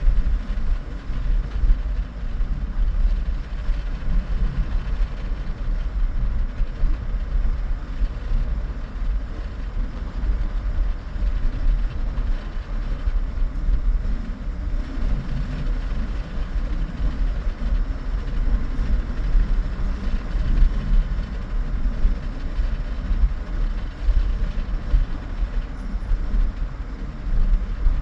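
Strong wind buffeting the microphone: a deep, unsteady rumble that rises and falls in quick gusts.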